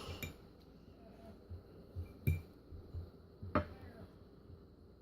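Eating utensil tapping and knocking against a plate while mashing baked potato, as a few scattered light clinks, the two loudest about two and a half and three and a half seconds in.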